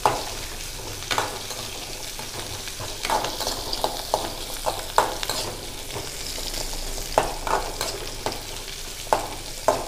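Shallots, garlic and whole spices sizzling in hot oil in a metal kadai, stirred with a metal spatula that scrapes and clinks against the pan at irregular intervals.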